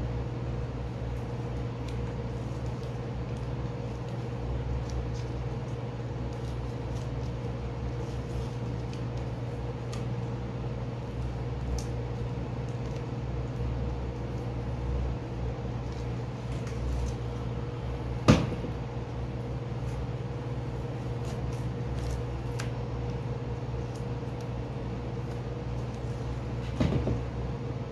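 Masking tape being peeled off a painted 3D-printed plastic helmet: faint scattered crackles and clicks over a steady low hum, with one sharp click about 18 seconds in.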